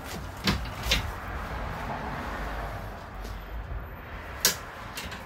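A few light clicks and knocks from a camper's bench-seat storage being handled, over a low rustle of handling; the sharpest click comes about four and a half seconds in.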